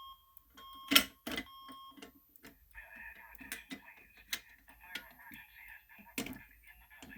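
Sharp clicks and clacks of a fire alarm pull station being handled and reset, the loudest about a second in. A couple of short electronic beeps sound near the start and again a little later, and a faint steady hiss joins about three seconds in.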